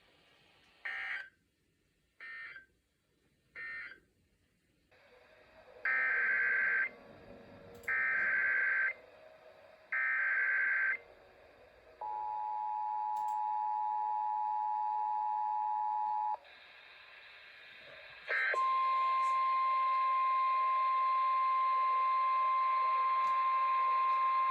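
Emergency Alert System tones over a weather radio broadcast. First come three short SAME digital data bursts, the end-of-message code. Then come three longer SAME header bursts for a new alert, the two-tone EAS attention signal held for about four seconds, and after a click NOAA Weather Radio's steady single-tone warning alarm.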